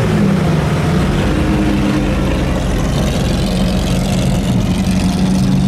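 Sports-car engines running at low speed as the cars crawl past, a steady low exhaust drone. The drone grows stronger in the second half as a Maserati GranTurismo's V8 draws near.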